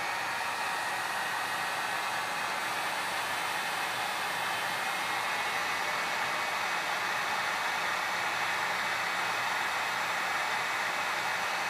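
Handheld heat gun running steadily, its fan and element blowing a continuous rush of hot air with a faint high whine, shrinking heat-shrink tubing onto a coax connector.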